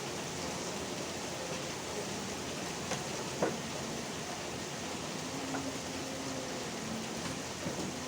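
Steady rain falling, with a few single drops ticking louder, the clearest about three and a half seconds in.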